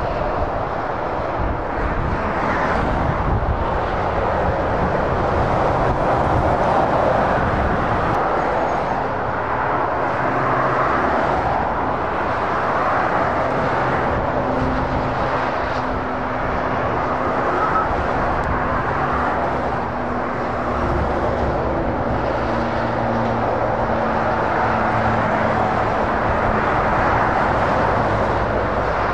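Steady motorway traffic, with heavy lorries and cars passing. The tyre noise swells and fades as vehicles go by, over the low hum of the lorries' diesel engines.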